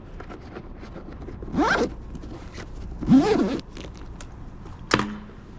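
A zipper pulled twice in short rasps, about a second and a half in and again, louder, about three seconds in, then a single sharp click near the end.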